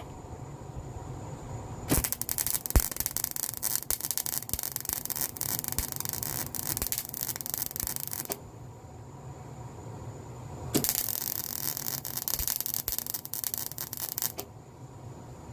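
Metalwork on the steel clamp: two bursts of harsh, crackling, scraping noise a few seconds each, starting and stopping abruptly, with a faint steady high tone between them.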